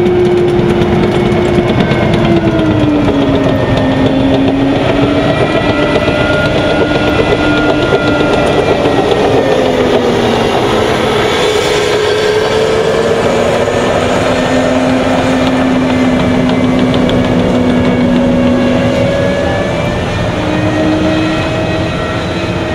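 M1 Abrams tank's gas turbine engine running as the tank drives past, a whine with several tones sliding up and down in pitch over the clank and rumble of its tracks. The sound fades somewhat near the end as the tank moves away.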